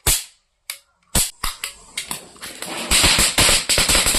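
Small firecracker-type explosive caps going off: a few separate sharp cracks, then from about two seconds in a rapid crackling string of many bangs.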